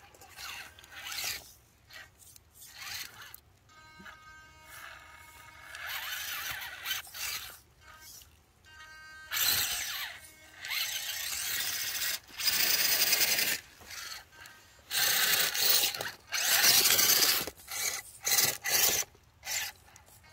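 Small electric RC rock crawler's motor and gears whining in short bursts of throttle as it climbs over rocks. The bursts are longest and loudest in the second half.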